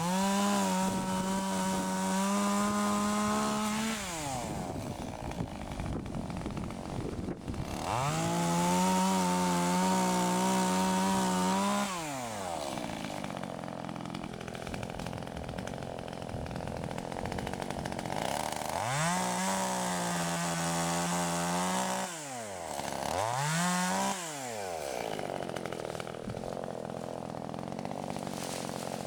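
Shindaiwa E1027TS two-stroke chainsaw engine being revved: three bursts of full throttle, each held steady for a few seconds, and one short blip near the end, falling back to idle in between.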